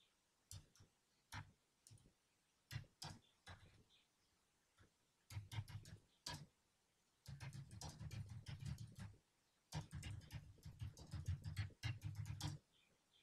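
Faint typing on a computer keyboard: a few separate keystrokes at first, then quick runs of keystrokes through the second half.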